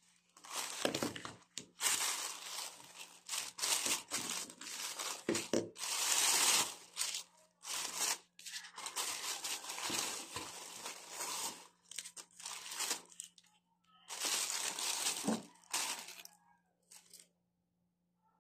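Plastic shopping bags and the plastic wrappers of ice cream cones crinkling and rustling as they are handled, in bursts with short pauses, stopping shortly before the end.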